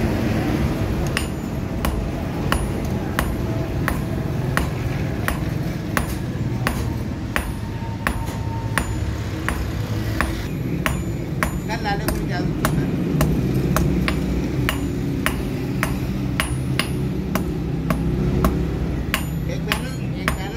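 Hand hammer forging a red-hot bar of car suspension-spring steel on a block anvil. The blows are evenly spaced at about one and a half a second and start about a second in, over a steady low rumble.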